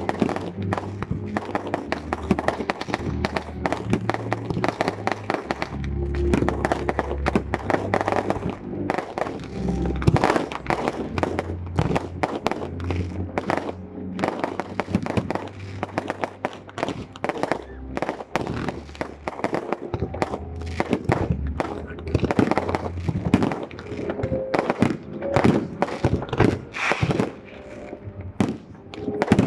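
Fireworks bursting and crackling in a rapid, irregular barrage, over loud music.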